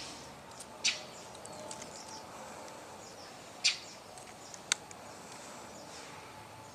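Mockingbird fledgling giving short, harsh begging calls, screaming for food: two loud ones about a second in and just past the middle, then a sharp tick, over faint high chirping in the background.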